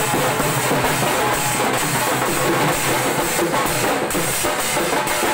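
Loud drum-led music with a steady beat.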